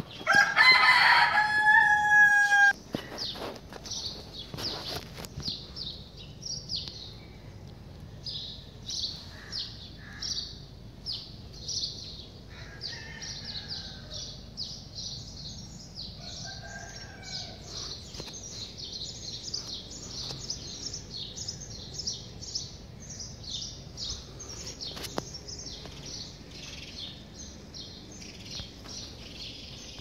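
A rooster crows once, loud, ending on a held note, then small birds chirp rapidly and steadily, with a few lower calls in between.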